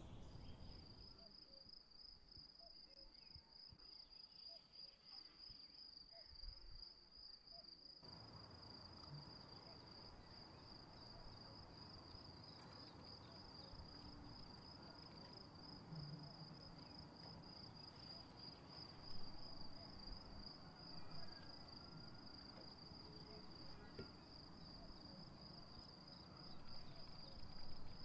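Crickets chirping in a faint, steady, high-pitched trill, with a few soft knocks underneath.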